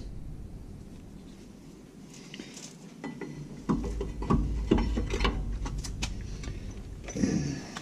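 Metal clicks and knocks of a brake caliper, fitted with pads, being handled and slid over a new rear brake disc, with a cluster of sharper knocks in the second half.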